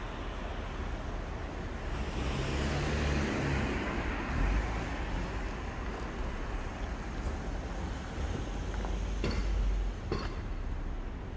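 City street traffic, with a heavy vehicle passing close by about two to five seconds in, its low engine hum rising and fading. Two sharp clicks come near the end.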